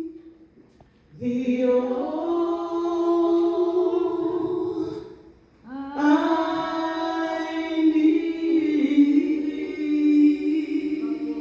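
Gospel worship singing: a voice sings two long, drawn-out phrases of held notes without words that can be made out, with a short pause between them.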